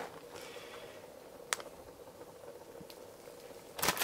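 Tortilla flatbread sizzling faintly in a hot cast-iron skillet on a gas grill burner, with one sharp click about one and a half seconds in and a short, louder knock near the end.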